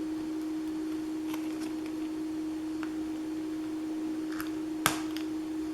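A steady hum at one low pitch, with a few faint clicks and one sharper click near the end from handling small craft embellishments and their plastic packaging.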